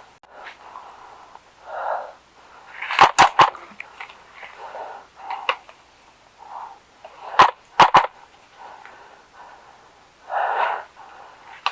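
Airsoft guns firing in short strings of sharp cracks: a few shots about three seconds in and three more around seven to eight seconds. Softer breath-like hisses come between the strings.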